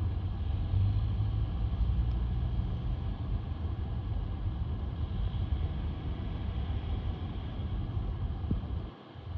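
Road traffic passing on a city street: a steady low rumble of car engines and tyres, heaviest in the first few seconds and easing after.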